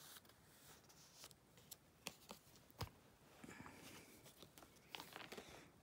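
Near silence with faint, scattered clicks and soft rustles of baseball cards being handled and slid in and out of plastic binder sleeves.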